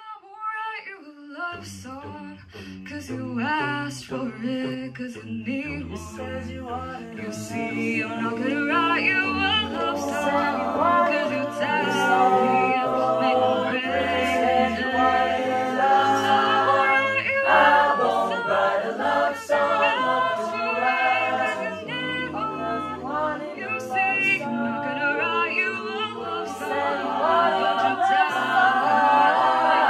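A cappella group singing a song, with a soloist on a handheld microphone over the other singers' backing parts. A low vocal bass line comes in about a second and a half in, and the singing grows louder.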